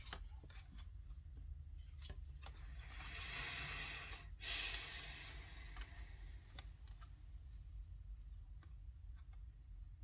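Tarot cards being handled: scattered faint taps and clicks, with two short rustling slides of cards about three and four and a half seconds in.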